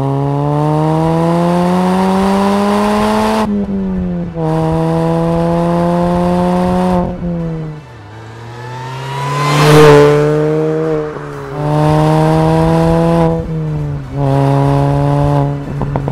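Mini Cooper S R53's supercharged 1.6-litre four-cylinder through a 2.5-inch stainless cat-back sports exhaust, accelerating hard through the gears: the pitch climbs in each gear and dips briefly at each upshift. About ten seconds in the car goes past at full throttle, the loudest moment, and near the end a short crackle of exhaust pops comes as the throttle lifts.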